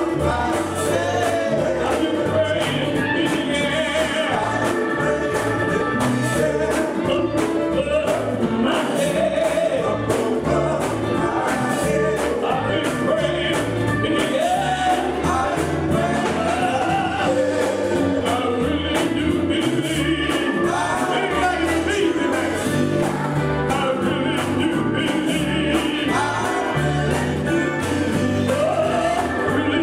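Male gospel quartet singing in close harmony, backed by a live band with a steady beat.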